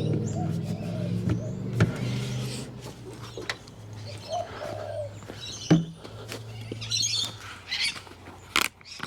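Birds chirping in short high calls, over a low steady hum that fades out near the end, with a few sharp knocks.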